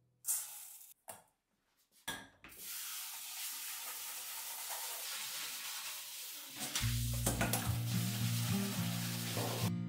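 Dry rice scooped and tipped into a stainless steel bowl, a few short scrapes and rattles, then tap water running into the bowl while the rice is washed by hand: a steady hiss of water. Background music comes in about seven seconds in.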